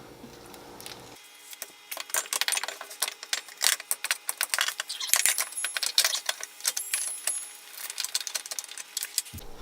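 Quick, irregular metallic clinks and knocks, starting about a second in, as a coilover and tools are handled and worked into a car's front suspension.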